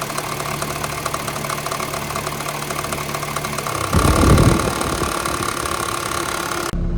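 2013 Honda Fit's 1.5-litre four-cylinder idling at about 1,000 rpm with the AC compressor engaged, a fast rattle running through it that comes from a worn accessory drive belt. About four seconds in there is a brief loud low rumble, and near the end the sound abruptly turns duller.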